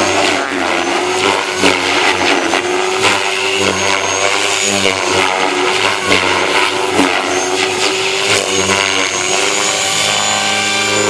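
Align T-Rex 500X electric RC helicopter in flight: a steady motor-and-rotor whine whose pitch wavers up and down as it banks and manoeuvres.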